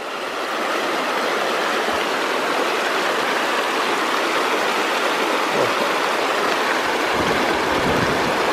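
Fast mountain creek rushing over rocks, a steady loud rush of water that swells over the first second and then holds even.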